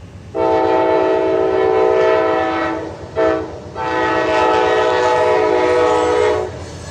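A locomotive's Nathan K5LA five-chime air horn sounds a loud long blast, a brief short one, then another long blast.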